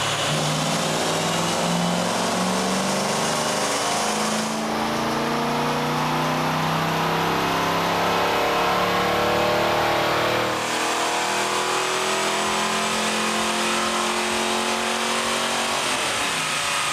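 Small-block Ford 302 V8 in a Fox Body Mustang running on a chassis dyno at full-throttle pulls, its pitch climbing with the revs. The rise breaks off about four and a half seconds in and again about ten and a half seconds in, then climbs again.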